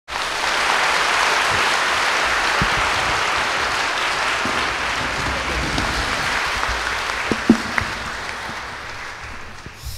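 Audience applauding steadily, the clapping slowly fading toward the end, with a brief thump about seven and a half seconds in.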